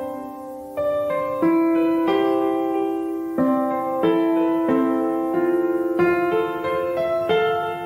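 Background piano music: chords struck every second or so and left to ring.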